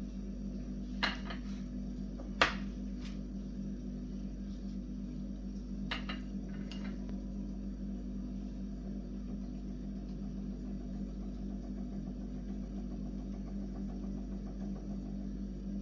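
A steady low hum with a few light clicks and knocks in the first seven seconds; the sharpest knock comes about two and a half seconds in.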